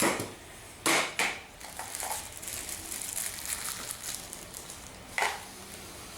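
Metal tools and parts being handled: four sharp clinks and knocks, with faint scraping and rustling between them.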